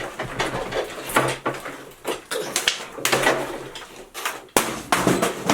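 Rustling and clicking from small craft-kit pieces and papers being handled on a table, with one sharp knock about four and a half seconds in.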